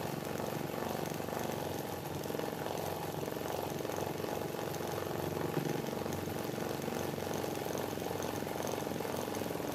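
Industrial sewing machine running steadily at speed, its needle stitching a decorative embroidered border onto skirt fabric.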